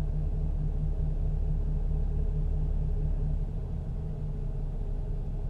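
A steady low hum or rumble, easing slightly about three and a half seconds in.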